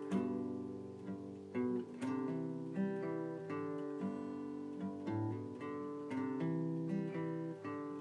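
Outro music: acoustic guitar strumming chords, a fresh chord struck about once a second.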